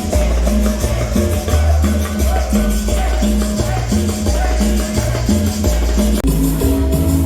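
Latin dance music played loud over a sound system, with a repeating bass line and steady high percussion. The arrangement changes about six seconds in.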